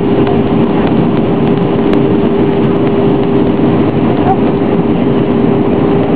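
Steady cabin noise inside an easyJet airliner in flight: a loud, even roar of the jet engines and airflow with a steady hum running through it.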